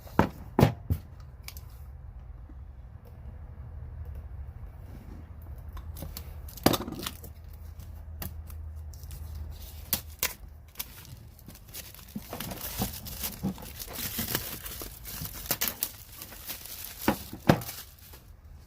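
Packaging being torn open and crinkled by hand, with a few sharp knocks and clicks; the rustling is busiest a little past the middle.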